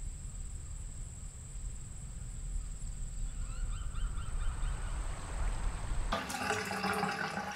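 Outdoor ambience: a low wind rumble under a thin steady high tone, with faint bird chirps in the middle. About six seconds in it changes to a louder, busier mix of water and bird calls.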